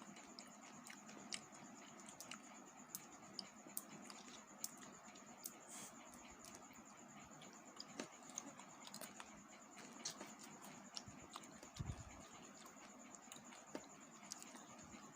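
Faint, irregular light clicks and taps of small candy-coated chocolate buttons (Gems) being handled and sorted.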